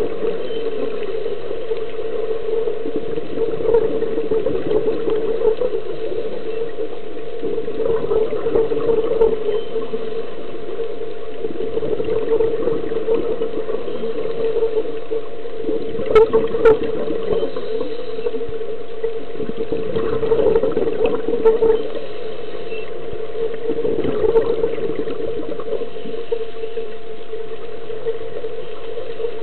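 Underwater sound through a dive camera: a steady hum, with the gurgle of a scuba diver's exhaled bubbles rising every few seconds.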